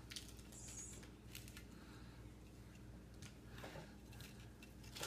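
Faint clicks and rustles of a small plastic Kinder Egg toy being handled and its pieces fitted together by hand, over a low steady hum.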